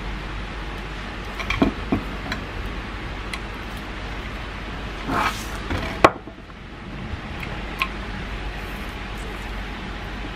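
Handling noise from a shrink-wrapped bamboo cutting board: a few light clicks and a short rustle of plastic wrap, then a single sharp click just after six seconds as the board's metal hanging ring is lifted, all over a steady background hiss.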